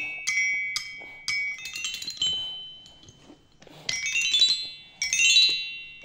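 Children's toy xylophone with painted metal bars struck with two mallets: single ringing notes about twice a second at first, then a short pause, then two quick, louder runs of notes near four and five seconds in.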